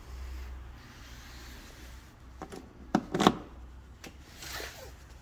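A few sharp clicks and knocks about three seconds in, from the ignition key on a Yamaha ATV being handled and turned, over a faint low hum; no engine runs.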